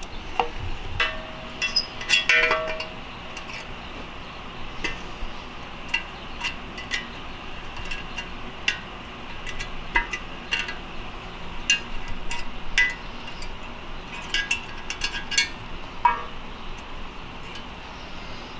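Flathead screwdriver prying a steel snap ring out of a Honda K-series transmission case: a string of sharp metallic clicks and clinks as the tool and ring scrape and catch, with a short ringing note around two seconds in.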